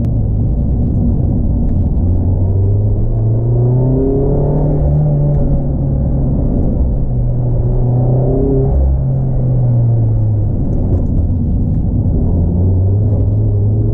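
Mazda MX-5 ND2's four-cylinder engine under way, heard from the open cockpit. Its note climbs steadily a few seconds in, falls back around two-thirds of the way through, then climbs again near the end, as the car accelerates and eases off.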